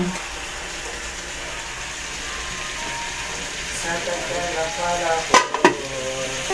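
Chicken and sliced hotdog frying in oil in an aluminium wok, a steady sizzle. Faint voices come in about two-thirds of the way through, and two sharp knocks a moment apart soon after are the loudest sounds.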